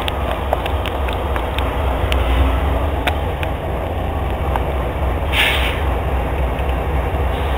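Freight trains passing, with a Norfolk Southern diesel-locomotive consist and double-stack container cars: a steady heavy low rumble with scattered sharp clicks of wheels on rail, and a brief hiss about five seconds in.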